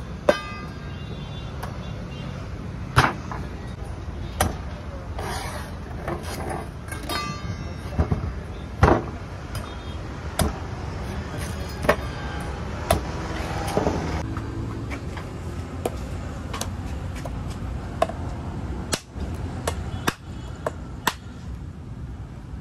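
Long knife chopping into green tender coconuts: sharp strikes of the blade through the husk and onto the wooden board, coming irregularly every second or few seconds.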